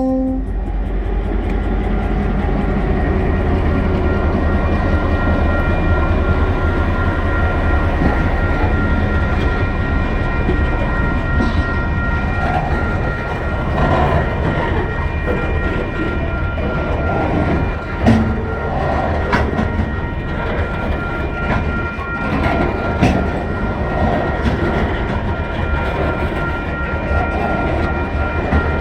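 Loaded coal wagons of a freight train rolling past: a steady heavy rumble with sharp wheel clicks over rail joints, and a thin steady high-pitched whine running under it.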